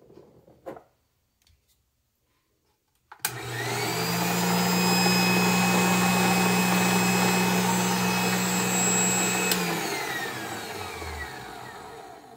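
LEM #8 200-watt electric meat grinder switched on with a click and its motor running steadily, unloaded with no grinding head fitted. After about six seconds it clicks off and the motor winds down, its hum and whine falling in pitch as it fades.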